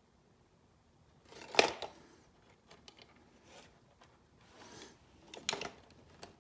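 Small handling clicks and rustles of hands working over an opened electronics unit: a sharp click about one and a half seconds in, a few light ticks and soft scrapes, and another sharp double click near the end.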